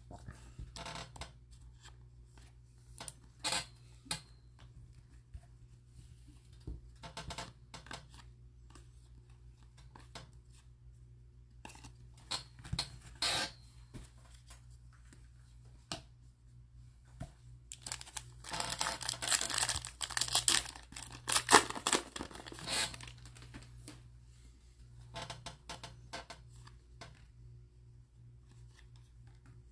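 Donruss baseball card pack wrapper torn open and crinkled, in a dense stretch of tearing about two-thirds of the way in. Before and after it come scattered short clicks and rustles of cards being handled.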